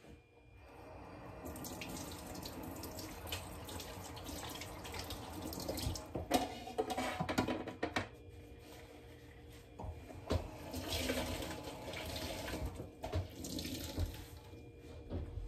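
Kitchen tap running into a stainless steel sink while dishes are washed by hand, with plates and dishes clinking and knocking now and then, most in the middle stretch.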